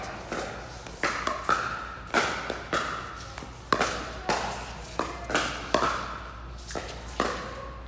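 Pickleball rally: paddles striking a hard plastic pickleball again and again, about a dozen sharp pops at irregular intervals of half a second to a second, each ringing briefly in a large hall.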